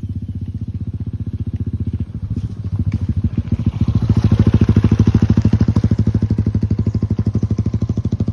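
Motorcycle engine running with a rapid, even putter, growing louder about four seconds in.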